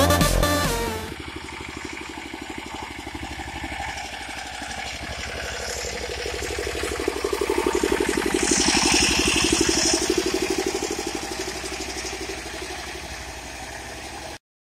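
Electronic music for about the first second, then the homemade mini tractor's single-cylinder engine running with an even rapid beat. It grows louder in the middle and eases off again, then cuts off abruptly near the end.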